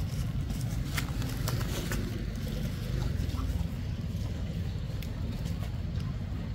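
Low, steady rumble of wind buffeting the microphone, with scattered short clicks and rustles.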